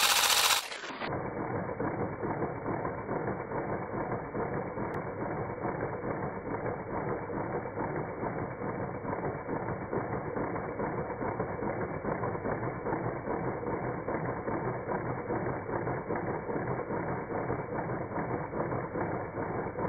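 Paper-and-cardboard model inline-four engine spun by a Dremel rotary tool through its sanded wooden dowel crankshaft, its light parts clattering in a steady, rapid rattle. It opens with a brief, louder burst.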